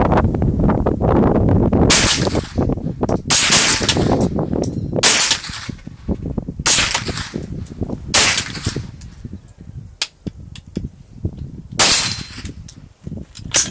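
.22 LR AR-15-style rifle fired in slow semi-automatic shots, about seven sharp light cracks spaced one to two seconds apart, each with a short ring, and a longer pause before the last two. Fainter pops fall between the shots.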